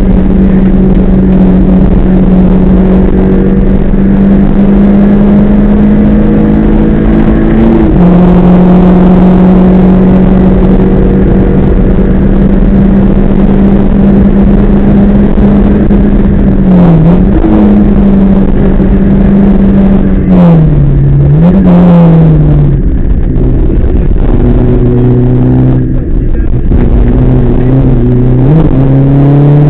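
Rally car engine heard loud from inside the cabin, held at high revs for long stretches as the car is driven flat out. Past the middle the revs dip and swoop for a few seconds of braking and gear changes, run lower for a while, then climb again near the end.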